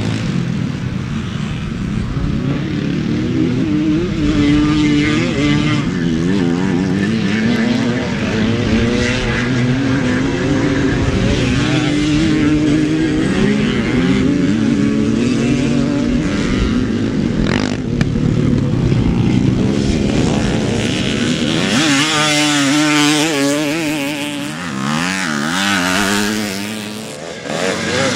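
Several classic motocross bikes racing, their engines revving up and down and overlapping as they pass.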